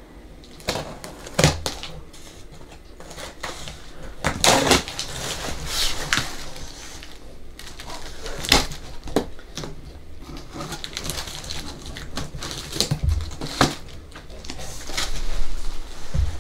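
A large cardboard box being cut open: a blade drawn through the packing tape in short irregular strokes, with knocks and scraping as the cardboard flaps are handled and pulled open.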